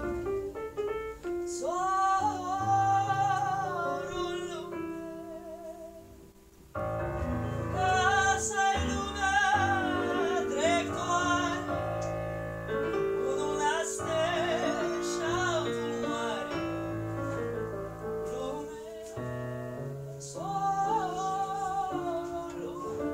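A woman singing a Jewish folk song with wide vibrato, accompanied by piano-sound chords on an electric keyboard. The music thins out to a brief lull about six seconds in, then voice and keyboard come back in together.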